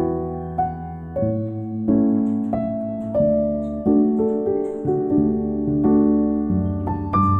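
Background music: a slow, gentle piano melody with sustained notes.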